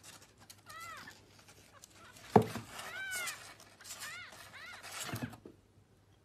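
Young kitten mewing several times in short, high cries that rise and fall in pitch, with a single sharp knock about two seconds in.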